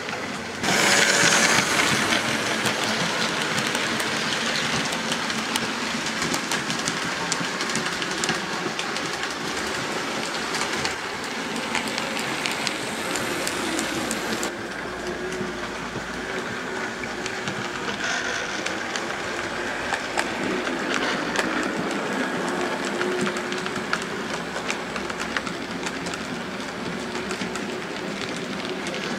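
OO gauge model trains running on the layout track: a steady rattle of wheels clicking over the rail joints, with a faint hum from the locomotive motors. The sound jumps louder about half a second in.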